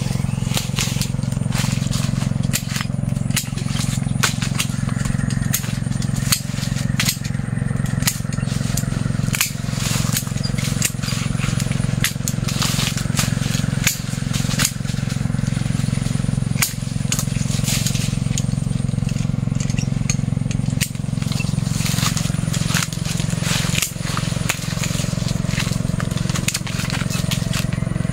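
Pruning shears clipping and branches and leaves of a jackfruit tree snapping and rustling: many short, irregular clicks and cracks. Under them runs a steady low hum.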